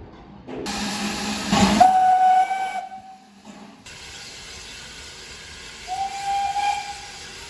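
British steam locomotive whistle blown in two short single-note blasts, each about a second long and several seconds apart, over a steady hiss of steam.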